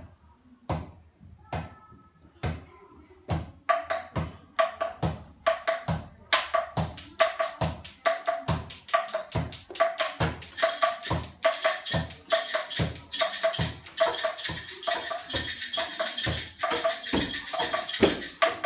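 Handheld percussion played as a group: a few spaced knocks at first, then a steady rhythm of low thuds and pitched, wood-block-like knocks. About ten seconds in, a rattling shaker joins.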